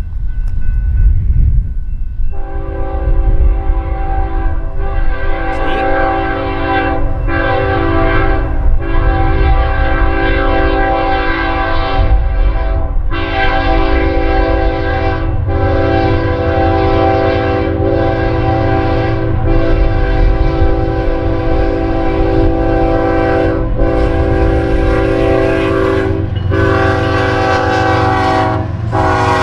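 A BNSF freight locomotive's multi-note air horn sounding a long series of blasts with short breaks, starting about two seconds in, as the train approaches a grade crossing. A steady low rumble runs underneath.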